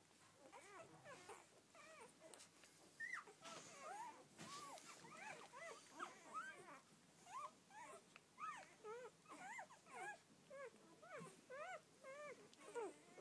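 Newborn Rhodesian ridgeback puppies squeaking and whimpering: many short, high, arching calls, several a second and overlapping, throughout.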